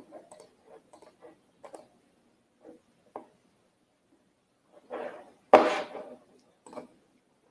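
Scattered light clicks and taps from a computer keyboard and mouse being worked at a desk, with a louder noise lasting about half a second about five and a half seconds in.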